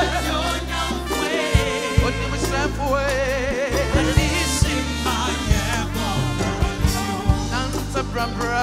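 Live gospel worship music: a singer's wavering, vibrato-laden voice over a steady bass line and regular drum hits.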